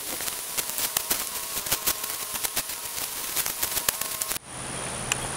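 Shovel blade digging into dry leaf litter and sandy soil: a fast, irregular run of crunches and scrapes that stops abruptly about four seconds in. A steady rushing noise follows.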